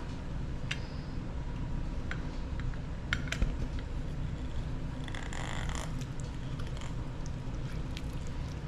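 Hand-held lemon squeezer being worked over a bowl: a few light clicks and a brief squishing hiss about five seconds in as the juice is pressed out, over a steady low hum of kitchen room noise.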